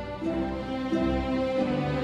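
Background music: a slow piece of held, pitched notes that change every half second or so.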